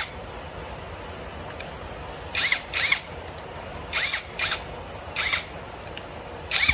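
Dagmara DTD173 cordless brushless impact driver spinning freely with no load in about six short trigger blips, each a brief whine rising and falling in pitch: a first test that the new tool runs.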